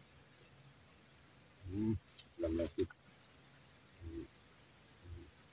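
A high-pitched insect trill of rapid, even pulses, steady apart from a short break or two, with a few faint low sounds between about two and three seconds in.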